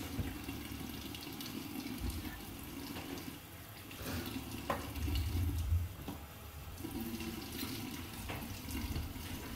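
Bathroom tap running steadily into a sink, with a few low thuds of handling.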